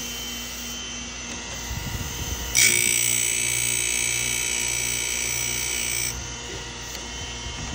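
Electric chainsaw chain grinder running with its pink aluminum oxide wheel. About two and a half seconds in, the freshly dressed wheel comes down on a chain cutter and grinds it with a high, steady whine for about three and a half seconds, then lifts off to the motor's hum.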